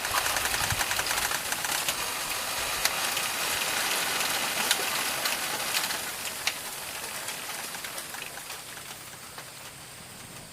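A bamboo stand in the wind: a dense rustling hiss full of small sharp clicks and creaks from the stalks. It is loudest for the first half and fades gradually toward the end.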